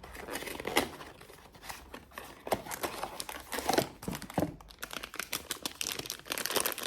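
Blind-box toy packaging crinkling and tearing as it is handled and opened by hand: irregular crackles and rustles, busier in the second half.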